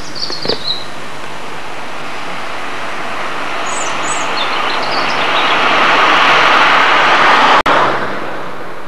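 A rushing noise swells over several seconds, like a vehicle passing, then drops away abruptly near the end. Small birds chirp a few times in the first half.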